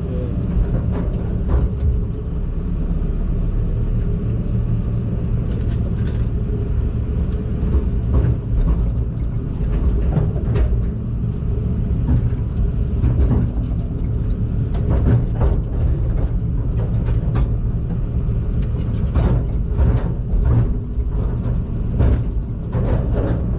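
Heavy machine's engine running with a steady low rumble, with occasional knocks and clanks.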